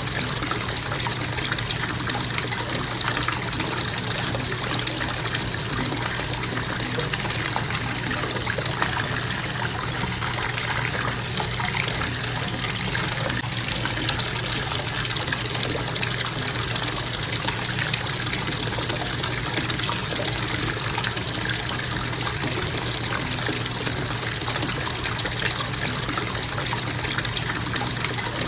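Bathtub faucet running in a steady, constant stream of water.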